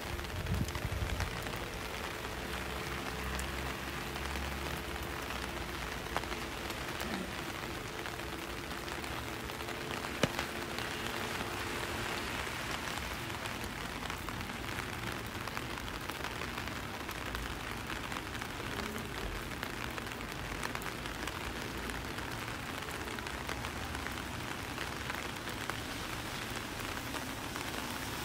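Steady rain falling, an even patter with no let-up. A faint low hum sits under it for roughly the first twelve seconds, and there is one sharp tick about ten seconds in.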